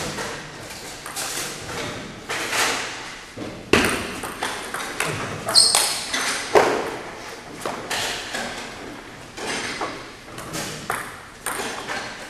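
Table tennis ball being struck by paddles and bouncing on the table: sharp, irregular clicks, each with a short echo off the hall.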